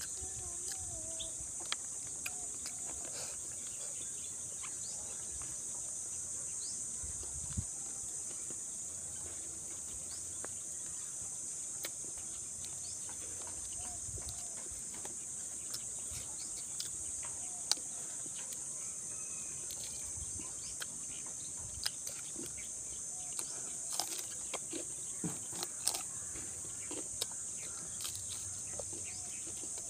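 A steady high-pitched insect drone runs throughout, with scattered sharp clicks and smacks from eating crispy fried pork leg by hand, the loudest coming in clusters near the end.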